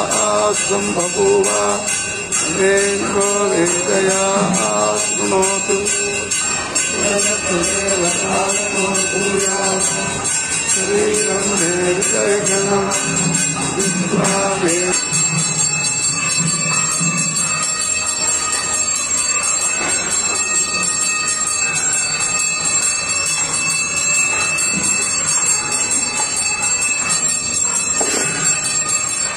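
Bells jingling steadily over devotional music. A chanted melody carries the first half and gives way to a steadier ringing texture about halfway through.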